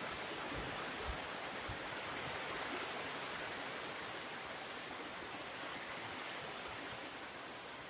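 Steady rush of hurricane rain and wind, an even noise with no breaks, with a few soft low thumps in the first couple of seconds.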